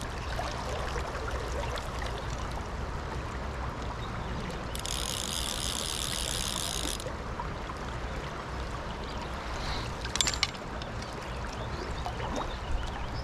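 River water running steadily. About five seconds in, a fly reel's drag buzzes for about two seconds as the hooked fish pulls line off the reel.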